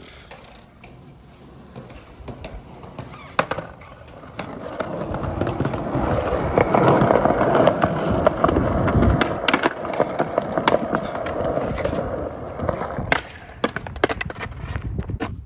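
Skateboard wheels rolling on a concrete sidewalk, growing louder over a couple of seconds, holding steady, then dying away, with sharp clacks of the board near the start and near the end.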